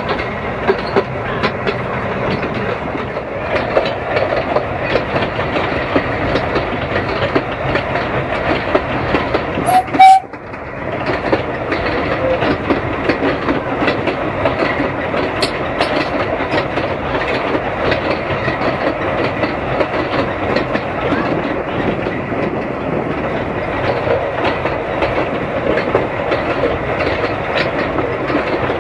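Hunslet narrow gauge steam locomotive hauling its train, heard from an open carriage just behind it: steady running noise with the wheels clattering over the rail joints. A short, very loud burst comes about ten seconds in.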